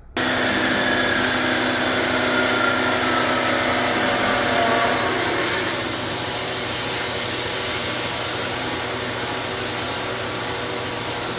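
Metal-cutting power saw running: a loud, steady machine noise that starts abruptly, with a whine that slowly falls in pitch over the first few seconds.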